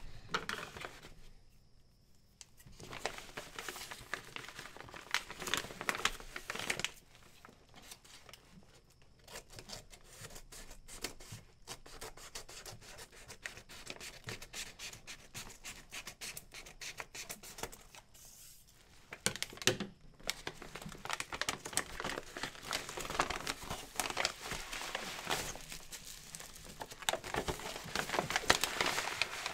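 A parcel being opened by hand: packaging torn and paper and plastic wrapping crinkling and rustling in irregular spurts, with a couple of short pauses.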